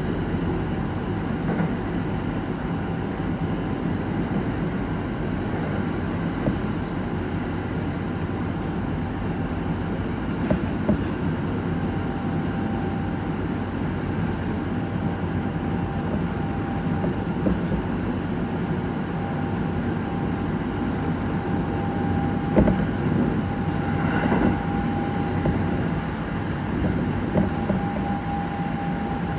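Train in motion, heard from inside the car: steady rail and running rumble with a few knocks, and a steady high whine from a traction motor that grows clearer in the last third. The uploader calls this motor's sound clearly abnormal.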